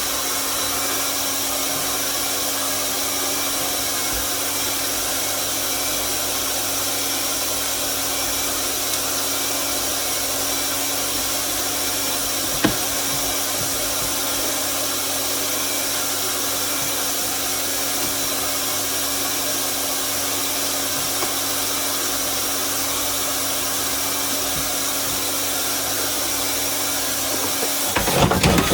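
Hot-air plastic welder running steadily, its blower giving an even hiss over a constant hum while the seams of plastic sheet are welded. A single sharp click about halfway through and a clatter of knocks near the end.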